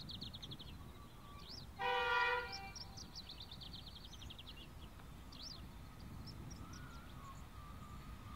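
A distant Pacific National NR-class locomotive horn sounds one short blast about two seconds in, the loudest sound, over a steady low rumble. A bird trills repeatedly in quick high chirps.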